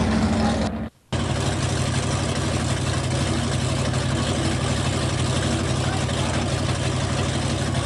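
Drill team racing truck's engine idling steadily, with voices in the background. The sound cuts out completely for a moment about a second in.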